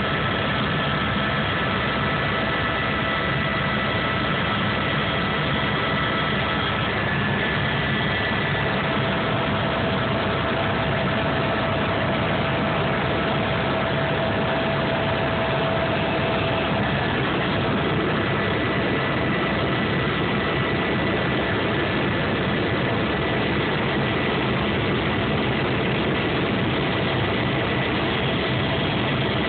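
Helicopter cabin noise in flight: a steady drone of engine and rotor heard from inside the cabin, with faint whining tones that fade in and out.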